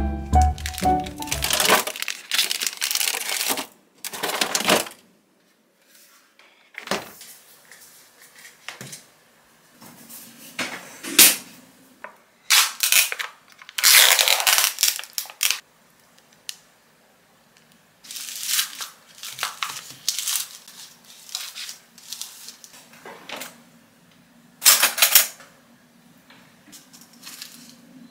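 Handling of plastic ice-cream packaging: a series of short crinkling, rustling bursts as a cup of patbingsu (red-bean shaved ice) is unwrapped and its lid peeled off.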